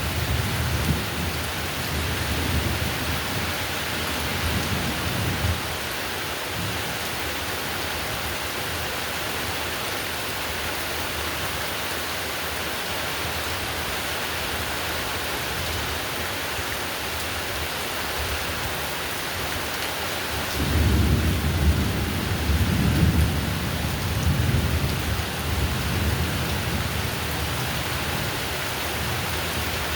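Heavy rain falling steadily, with rolls of thunder rumbling low during the first few seconds and again for several seconds from about two-thirds of the way through.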